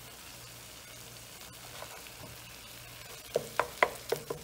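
Butter sizzling faintly in a nonstick pan as pav buns toast in it. A little over three seconds in, a wooden spoon knocks against the pan about five times in quick succession as it stirs the thick masala.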